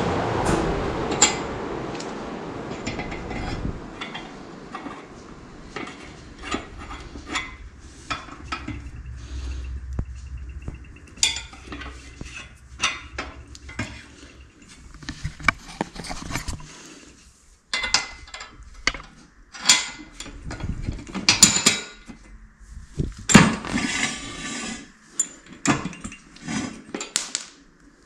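Metal clinks, clicks and knocks from hand-adjusting the threaded steel tie rod and its rod ends on a steel wagon frame, to set the wheel alignment. A rumble dies away over the first few seconds. After that come scattered sharp clicks, and the clanks grow busier and louder in the second half.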